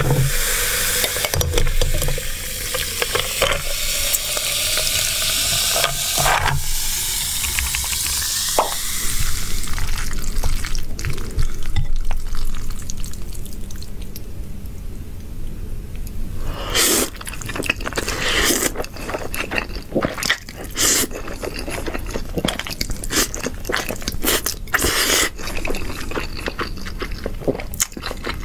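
A drink poured from a can over ice into a glass jug, the splashing pour rising in pitch as the jug fills. From a little past the middle on, close-up eating sounds take over: noodles (zhajiangmian, black bean sauce noodles) being chewed, with many quick sharp mouth clicks.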